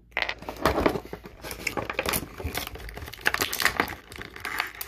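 Clear plastic blister tray of a toy package crinkling and crackling as it is handled and lifted, a dense run of small crackles and clicks.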